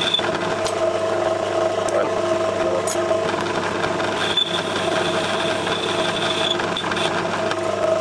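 Myford Super 7 lathe running steadily while a turning tool cuts the chuck backplate, with a high whine that fades out just after the start and returns for a couple of seconds around the middle.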